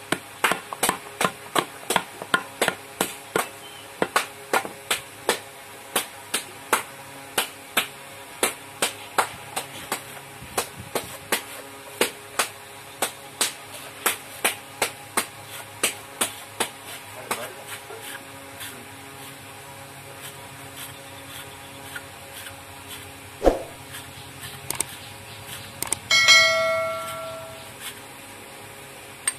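Sharp, even tapping, about two taps a second, that thins out and stops a little past halfway; later one loud knock, then a brief ringing tone that dies away.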